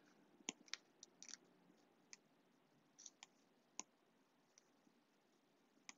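Faint, sharp clicks of a stylus tip tapping on a tablet's glass screen, about ten taps spaced irregularly, as the pen picks the eraser tool and taps away handwritten strokes.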